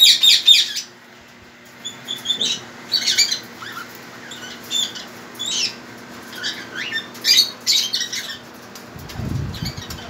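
Caged parrots, white cockatiels among them, giving short, shrill squawks and chirps in quick clusters, some calls sliding in pitch. A low rustle comes near the end.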